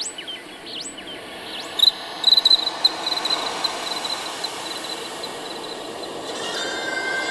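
Birds chirping in short, sharp rising calls, then a rapid, high insect-like trill over a steady hiss; near the end, sustained steady musical tones begin.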